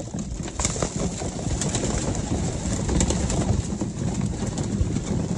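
A flock of racing pigeons cooing together as they crowd in to feed, with a scatter of short taps and wing flutters as they peck and jostle.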